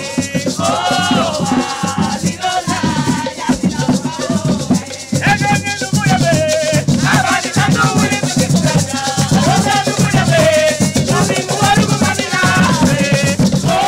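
Garifuna folk song: voices singing a wavering melody over maracas shaken in a steady, driving rhythm.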